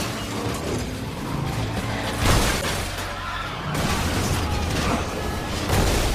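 Film soundtrack: music with a steady low bass under several sudden sharp hits, the loudest a little over two seconds in.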